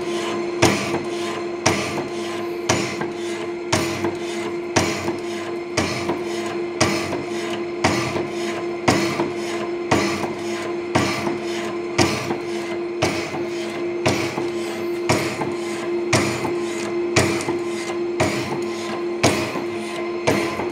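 Sachman Syncron 225 keyway slotting machine running: its ram strokes the cutting tool up and down through the bore of the workpiece, with a sharp knock about once a second at each stroke over a steady motor hum.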